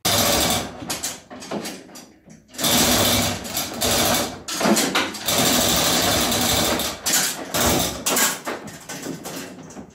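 Lifting gear hoisting a boxed machine in slings: an irregular mechanical clattering and rattling, loud in long stretches with brief pauses, dying down near the end.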